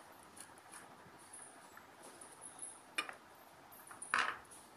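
Flat screwdriver prying at the seam of a glued, screwless plastic phone-charger case: light scraping and clicking, a sharp plastic snap about three seconds in, and a louder crackle a second later as the case comes apart.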